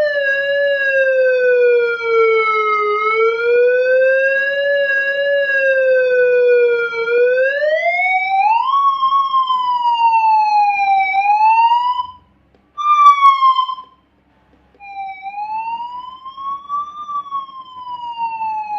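Electronic siren module sounding through a horn speaker: a loud wailing tone that glides slowly up and down, then climbs to a higher pitch about seven seconds in. It cuts out briefly twice in the middle and comes back quieter with a slower rise and fall.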